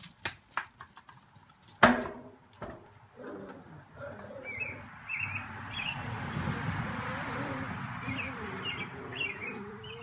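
Birds chirping in short bursts over a steady rushing background that swells through the middle, with a few sharp clicks and one loud knock about two seconds in.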